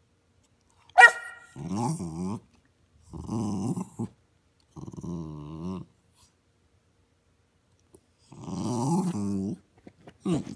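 Jack Russell terrier 'talking': one sharp, high bark about a second in, then four drawn-out growling vocalizations of about a second each, their pitch wavering up and down, with short sounds just before the end.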